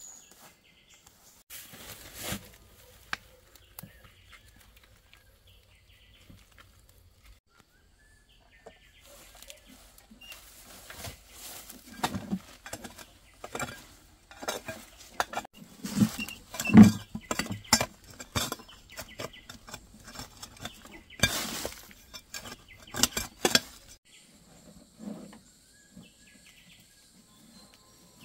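A hoe digging into stony ground: a run of sharp strikes, scrapes and clinks of the metal blade against stones and soil, starting about ten seconds in after a quieter stretch and easing off shortly before the end.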